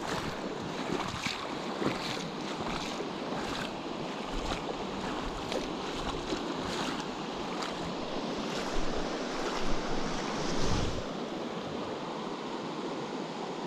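Steady rushing of a fast-flowing stream, with gusts of wind buffeting the microphone now and then.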